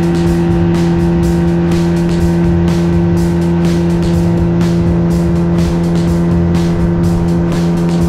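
Outboard motor running at a steady cruising speed, holding one even pitch as it drives a small aluminium boat, with the hull slapping across the chop a couple of times a second.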